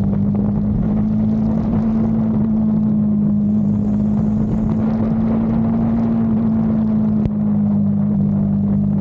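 KTM 390's single-cylinder engine running at a steady speed under way, its pitch held level throughout. A single short click comes about seven seconds in.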